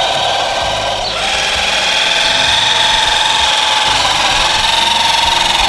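LGB track-cleaning locomotive running at full speed in cleaning mode, its electric drive motor and cleaning motor making a steady whine, with a short dip about a second in.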